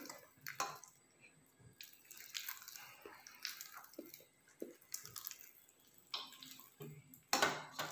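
Hand squeezing and mixing a sticky dough of mashed ripe plantain, rice flour and jaggery syrup in a steel bowl: irregular soft, wet squishing sounds, with a louder one near the end.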